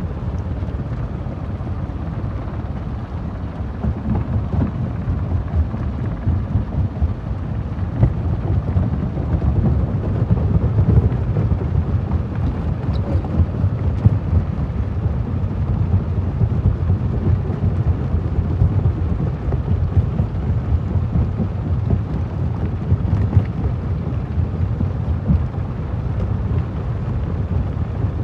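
Stone crusher breaking rock: a heavy, steady rumble with a dense crackle of stones cracking and knocking, growing a little louder about four seconds in.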